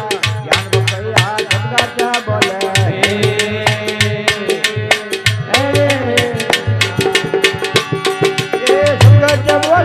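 Instrumental interlude of a nirgun bhajan: a fast, driving hand-drum beat with a melodic lead instrument whose notes bend and slide.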